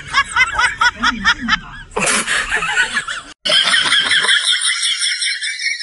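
High-pitched laughter, a rapid 'ha-ha-ha' of about four pulses a second. It breaks off about two seconds in and drops out briefly, then goes on thin and tinny with its low end gone.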